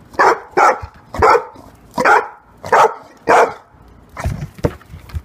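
Blue pit bull barking in short, loud, sharp barks, six in the first three and a half seconds, followed by a few quieter sounds.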